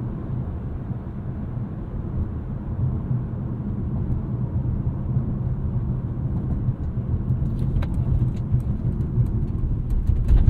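Road and tyre rumble inside the cabin of a 2022 Mercedes-Benz C300 4MATIC on Pirelli Sottozero winter tyres, driven over rough pavement in comfort mode as a ride test. A few sharp knocks come through in the last few seconds as the car goes over bumps.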